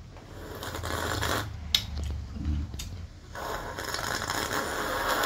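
A man slurping soup from a mug: a slurp about half a second in, then a longer one from about three seconds in.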